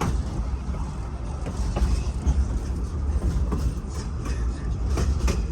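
Verde Canyon Railroad excursion train rolling along the track, heard from aboard: a steady low rumble with a few scattered clicks and knocks from the wheels and cars.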